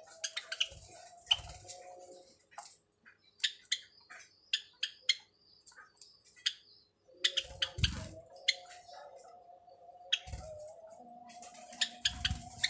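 White Java sparrows making short, sharp chirping calls in quick bursts, with a few low thumps near the middle and the end.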